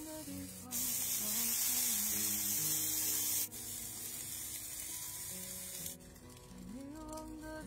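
Intestines sizzling on a hot grill grate: a steady hiss, loudest for about three seconds from just under a second in, then fading out, with background music underneath.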